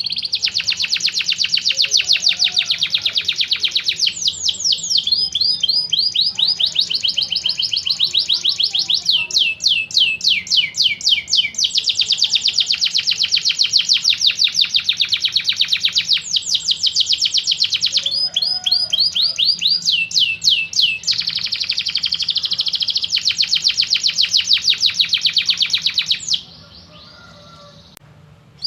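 Domestic canary singing a long, continuous song of rapid trills, each phrase a fast run of repeated notes that switches to a new phrase every few seconds; the song stops near the end.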